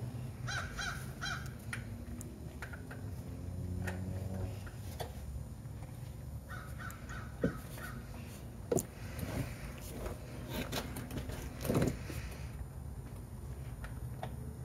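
A few faint knocks and clinks of an oil filter wrench straining on a stuck oil filter housing. Two short runs of repeated harsh bird calls, one near the start and one about halfway through.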